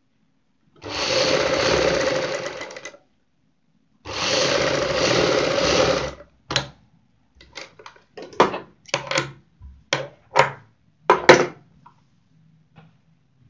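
Sewing machine stitching in two runs of about two seconds each. After the second run comes a string of short, irregular clicks and knocks.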